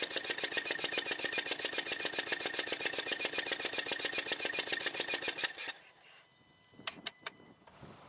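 Spark plug out of the 2.0 engine of a 2017 Hyundai Elantra, held in its coil and grounded, snapping in a rapid, even train of sparks while the engine runs. The snapping stops suddenly a little past halfway, followed by two light clicks. The coil gives a strong spark, and the plug tested here is judged defective.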